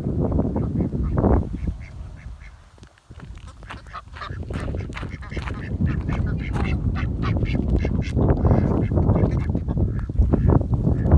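Wind rumbling on the microphone at first, then, after a brief drop about three seconds in, domestic ducks quacking repeatedly over the wind.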